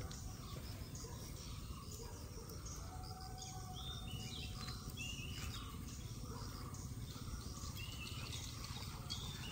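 Birds chirping outdoors, short high calls repeated every second or two, over a steady low background rumble.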